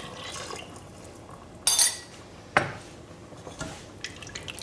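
The last of the broth pouring into a stainless steel stock pot. Then clinks and knocks of the mug and a wooden spoon against the pot as the goulash is stirred: a bright clink a little under two seconds in, a sharp knock just after, and a few lighter taps near the end.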